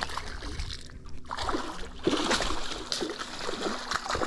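A hooked barramundi thrashing and splashing at the surface beside an aluminium boat, starting about a second in and going on in choppy bursts.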